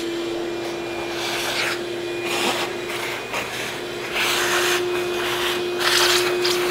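Shop vac running with a steady motor whine while its hose nozzle sucks little bits of metal from drilling out of bolt holes in a motorcycle's rear frame; the suction hiss swells several times as the nozzle is worked over the holes.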